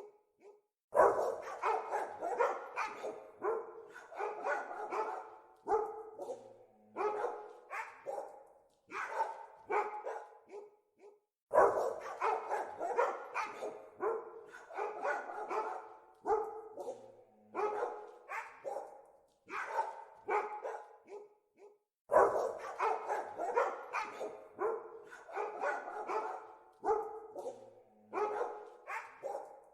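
Dogs barking in quick, dense runs of short barks, broken by brief pauses. The same stretch of barking comes round again about every ten seconds, as a looped recording does.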